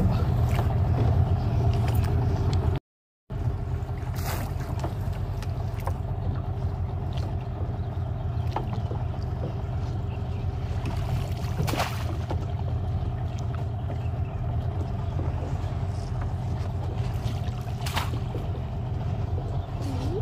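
A steady low rumble with a faint steady hum, as a rope is hauled hand over hand over a small wooden boat's gunwale to lift a crab trap, with a few sharp knocks against the hull. The sound drops out completely for about half a second near three seconds in.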